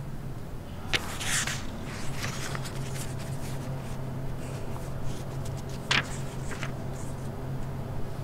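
Indoor library ambience: a steady low hum with a few small clicks and knocks, a brief rustle about a second in, and a sharp click about six seconds in.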